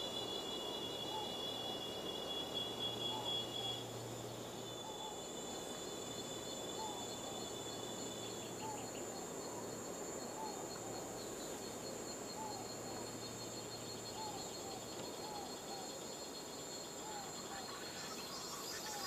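Outdoor insect chorus of steady, high-pitched droning tones, some of which stop after a few seconds, with short chirps recurring about once a second over a steady hiss.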